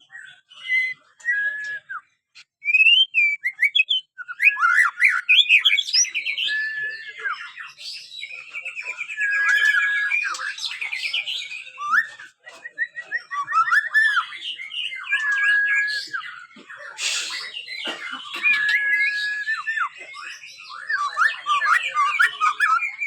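Juvenile white-rumped shama (murai batu), about five months old, singing a continuous string of varied whistles, trills and chattering phrases. A flat whistled note comes back again and again. This is a young bird still learning its song.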